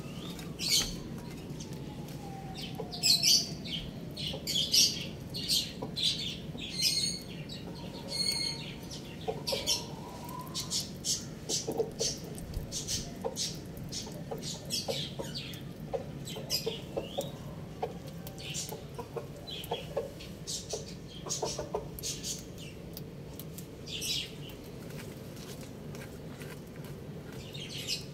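Rooster making short, quiet calls, among many brief sharp clicks and chirps.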